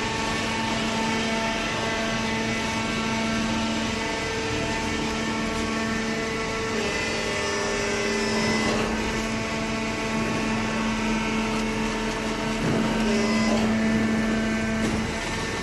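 Hydraulic baling press running, a steady machine hum made of several held tones over a noisy background, with a few faint knocks partway through.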